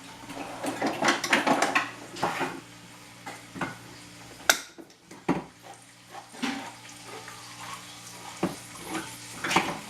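A metal utensil clinking and scraping against a cooking pot as food is stirred, with a few sharper knocks, over a steady low hum.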